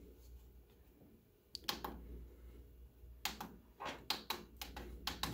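Plastic push-buttons on the side of a YORTOT digital wall clock being pressed, giving sharp clicks. There are a couple of clicks about one and a half seconds in, then a run of quick clicks, several a second, from about three seconds on. The unplugged clock stays off on its batteries alone.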